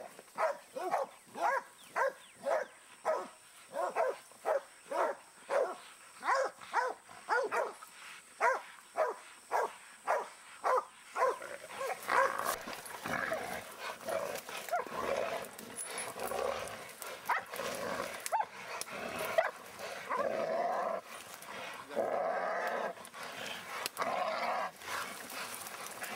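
Hog dog barking in a steady rhythm, about two barks a second, for roughly the first eleven seconds. The barking then gives way to a denser, jumbled stretch of dog sounds as the hog is caught.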